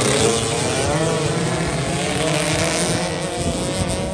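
A pack of racing pasolas (small scooter-type motorbikes) at full throttle on a dirt track, several engines whining at different pitches that rise and fall over each other. The sound eases a little near the end as the bikes pull away.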